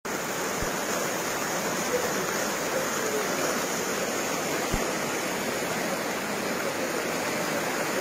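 Floodwater rushing through a street as a fast, turbulent torrent: a steady, unbroken roar of moving water.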